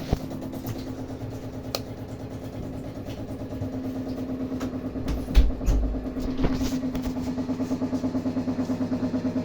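Water pipes humming from a gas water heater: a steady droning tone that pulses rapidly and grows stronger in the second half. A few low bumps come about halfway through.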